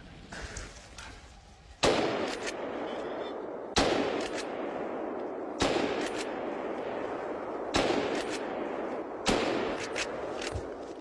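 Five rifle shots fired in quick succession at running wild boar, roughly two seconds apart, each followed by a long echo that dies away slowly.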